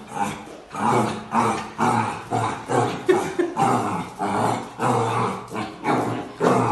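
Puppy growling and yapping in quick short bursts, two or three a second, as it challenges its own reflection in a mirror.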